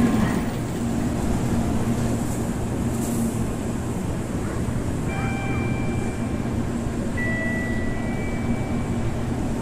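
Shinkansen train moving slowly along a station platform: a steady rumble with a low hum, and brief thin high tones about five seconds in and again near the end.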